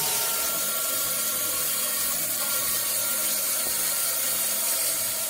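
A machine running steadily, giving an even, continuous hiss with a few faint steady whining tones under it.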